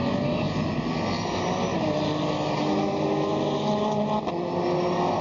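GT race cars' engines running on a circuit, several at once: overlapping engine notes whose pitches rise and fall as the cars accelerate and lift.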